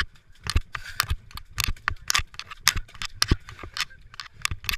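A runner crawling through wet mud, with irregular slaps, splashes and squelches of hands and body close to a chest-mounted action camera, several sharp knocks a second.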